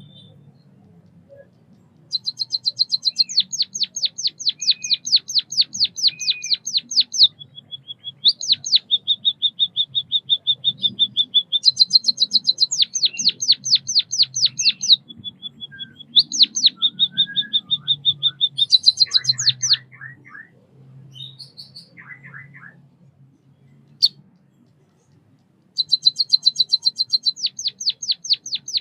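White-headed munia singing: fast trains of high ticks that run into a long, level high note, repeated in four bouts with short pauses between, and a few softer, lower calls in the middle.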